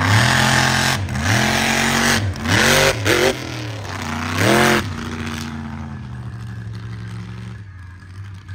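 Mega truck's engine revved hard in about five quick blips, its pitch jumping up and falling back each time, then running steadier and lower.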